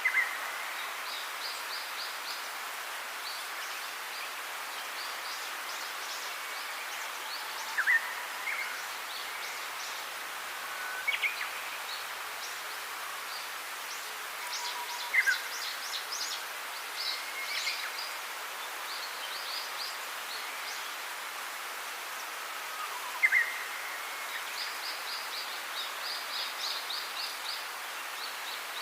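Songbirds chirping and trilling over a steady hiss of outdoor background noise. Short sharp whistled chirps stand out every few seconds, with quicker, higher trills in between.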